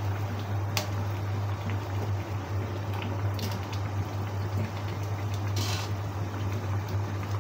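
Sauce bubbling at a boil in a wok on a gas stove, with a few light clicks and a short scrape from a metal ladle moved through the wok about three and a half and five and a half seconds in.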